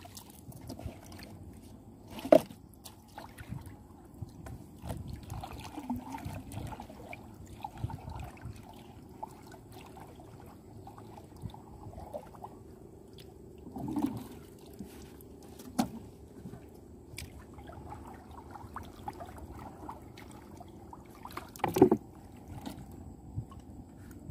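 Water sloshing and trickling around a small boat, with a few sharp knocks, the loudest about two seconds in and another near the end.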